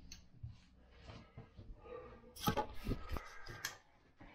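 Camera handling noise as the camera is picked up and carried: faint rubbing, then a cluster of short knocks and clicks in the second half.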